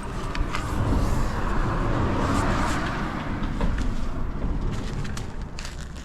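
Honda Live Dio 50cc two-stroke scooter engine running, swelling louder about a second in and easing off toward the end, with no abnormal noises.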